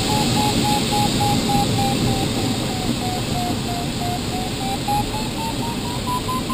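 Glider's audio variometer beeping in quick, even pulses over a steady rush of air past the cockpit. The beeps dip a little in pitch midway and then climb higher toward the end: the climb in lift weakening, then strengthening.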